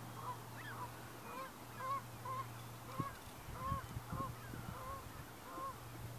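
Distant waterfowl calling over and over, short honking notes about two a second, over a steady low hum. A few low thumps come about halfway through.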